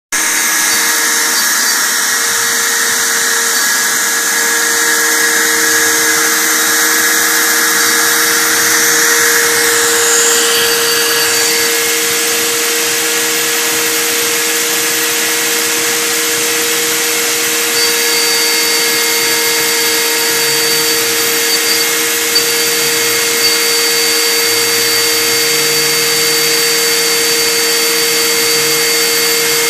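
CNC gantry milling machine running: its spindle gives a steady whine over a loud hiss, with a few brief faint clicks near the end.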